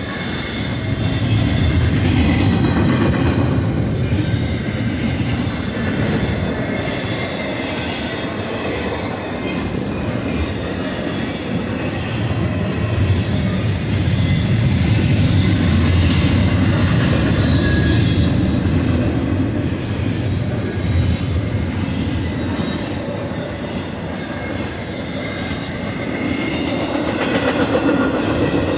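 Intermodal freight cars, well cars loaded with truck trailers and double-stacked containers, rolling past at speed: a steady deep rumble of steel wheels on the rails that swells and eases as the cars go by. Thin high ringing tones drift in and out over the rumble.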